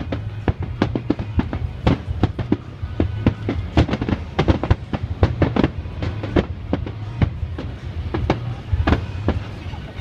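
Fireworks show: a rapid barrage of many sharp bangs and crackling bursts in quick succession.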